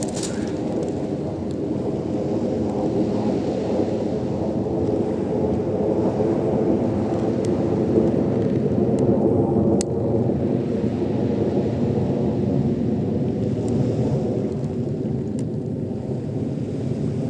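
Distant F-15 fighter jets' engines high overhead: a steady low rumble that swells a little about halfway through, then eases off.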